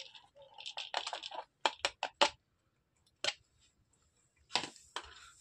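Small hard fireworks-star pellets being sifted and tipped in a plastic container and mesh sieve: a short rustling pour, then a quick run of sharp clicks, one more click, and another brief rustle near the end.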